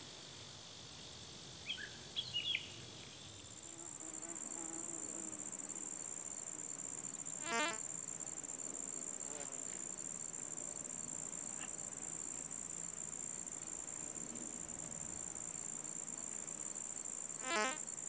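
Insects trilling in a steady, high-pitched, evenly pulsing chorus that sets in about three and a half seconds in. Twice, about ten seconds apart, a brief rapid clicking rattle sounds over it. Before the trill, a bird gives a few short chirps about two seconds in.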